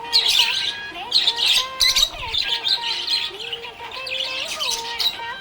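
Budgerigars chirping and warbling in repeated bursts of fast high chirps, with thinner gliding whistled tones between them.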